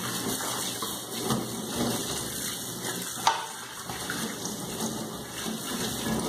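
Kitchen tap running, its stream splashing on an aluminium pot being rinsed over a stainless-steel sink. A single short knock a little over three seconds in.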